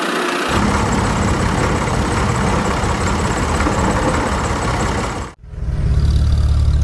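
An engine running steadily. About five seconds in it cuts off abruptly and comes back as a deeper, steadier hum.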